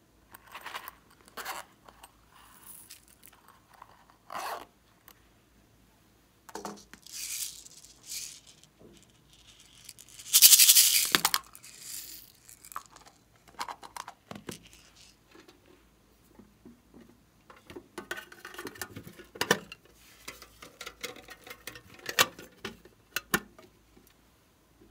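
Hard plastic novelty containers clicking and being opened, and small beads rattling as they are shaken and poured out onto slime in a glass tray. The loudest pour is a hissing rush about ten seconds in.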